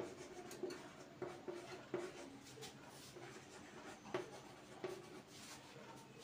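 Chalk writing on a chalkboard: a faint, irregular run of short taps and scratchy strokes as letters are written.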